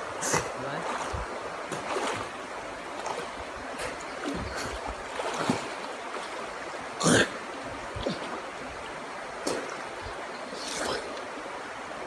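Steady rush of a shallow stream running over rocks, with a few short splashes from swimmers, the loudest about seven seconds in.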